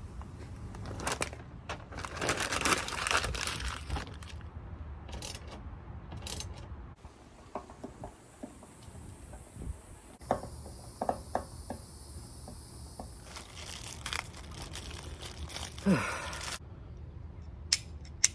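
Protective plastic film being peeled off a new acrylic livewell lid and crumpled, crinkling and tearing in bursts, with scattered small clicks.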